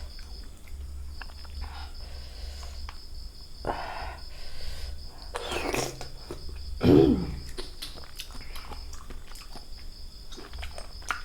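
Crickets chirping in a steady pulsing trill. Over it come a few short voice sounds, the loudest about two-thirds of the way through, and scattered small clicks.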